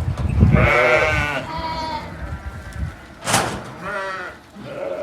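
Sheep bleating: several quavering calls one after another, with low thumping near the start.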